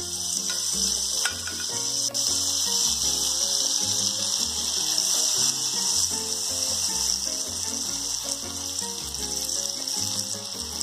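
Butter melting and sizzling in a hot nonstick frying pan, a steady frying hiss, over background music with a low, stepping bass line.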